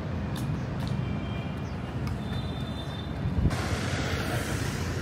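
Steady low rumble of vehicles running, with a sudden hiss starting about three and a half seconds in.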